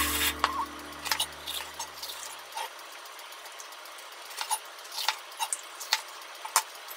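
Kitchen knife cutting bell peppers on a mango-wood cutting board: short, sharp knocks of the blade striking the board at an uneven pace, more of them in the second half.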